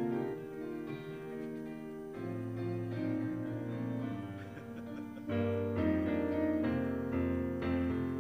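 Piano playing slow, held chords that change every second or so, growing louder about five seconds in.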